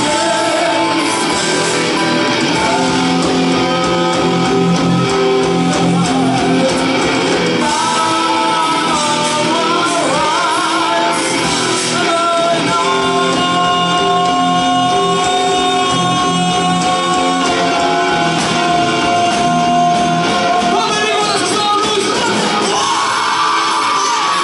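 Live band performing a song: singing over electric guitar, keyboards and drums, with long held notes through the middle.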